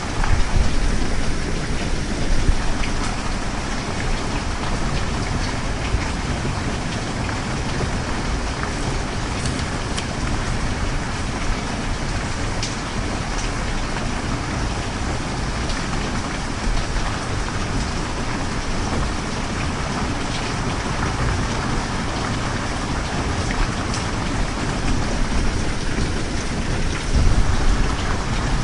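Steady rain: an even hiss with scattered drop ticks and low rumbling swells about a second in and near the end.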